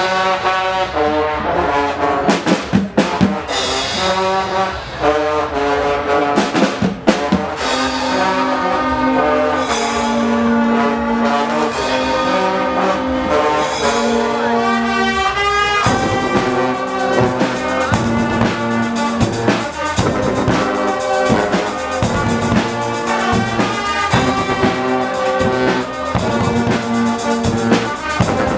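A Guggenmusik carnival band playing loudly: trombones and other brass hold chords over a drum kit and bass drum. A few heavy drum and cymbal accents come in the first few seconds. The drums settle into a steady driving beat about halfway through.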